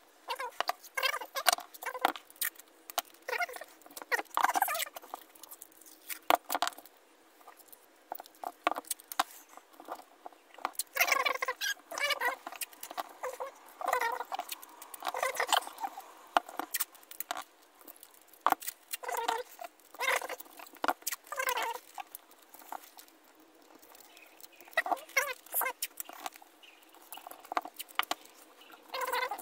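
Masking tape being pulled off its roll in repeated short squeaky strips, in clusters separated by quieter stretches, with light clicks and taps between.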